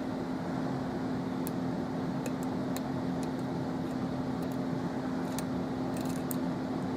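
Small, scattered metallic clicks and ticks of a hook pick working the pin tumblers of a GTV Euro cylinder during single-pin picking, over a steady background hum.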